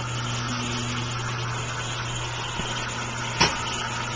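Hoist motor of a homemade dog elevator running steadily with a low hum as it lifts the wooden cage on its cable, with one sharp knock about three and a half seconds in.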